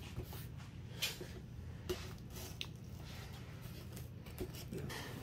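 Faint scrapes and a few light clicks of a large cardboard box being handled as its tape is cut and the outer box worked loose, over a low steady hum.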